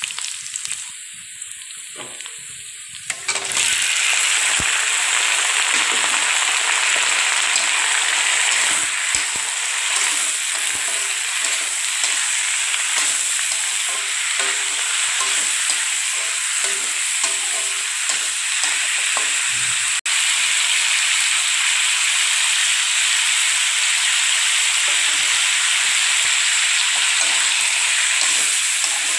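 Onions sizzling quietly in hot oil, then about three and a half seconds in a sudden loud hiss as raw chicken pieces go into the pan. The chicken then sizzles and fries steadily while a metal spatula stirs it.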